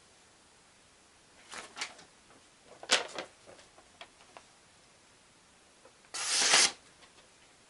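A sheet of paper rustling and crinkling as it is handled and unfolded. There is a sharp tap about three seconds in, and the loudest crinkle comes a little after six seconds.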